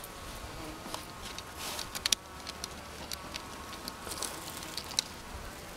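A mass of honey bees buzzing steadily, with scattered sharp clicks and taps, the loudest a couple just after two seconds and one near five seconds.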